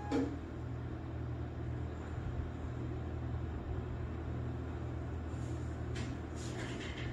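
Steady low machine hum, as from the powered printers on the bench, with a few soft clicks about six seconds in.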